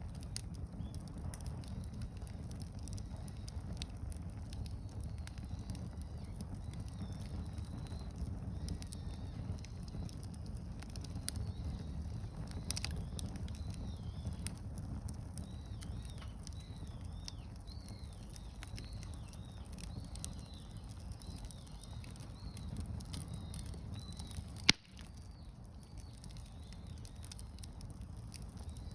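Wood fire burning steadily with a low rumble and scattered crackles. One sharp, loud pop comes about 25 seconds in.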